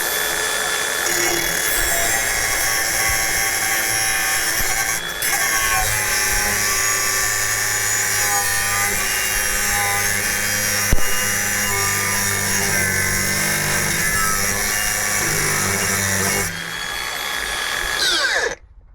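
Angle grinder running at a steady high whine and cutting through a rusted, seized exhaust pipe. From about six seconds in a heavier, rougher grinding joins it as the disc bites. Near the end the grinder is switched off and winds down.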